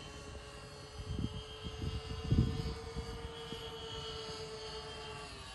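Electric motors and propellers of a twin-engine radio-controlled E-2C Hawkeye scale model flying overhead: a steady propeller hum that fades near the end. A few low thumps come about one to two and a half seconds in.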